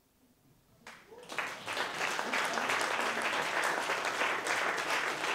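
Concert audience applauding: after about a second of near silence the clapping breaks out abruptly and holds steady and full.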